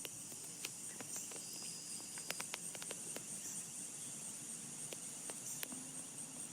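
Steady high-pitched insect chorus of the cricket kind, with a few faint sharp clicks scattered through it.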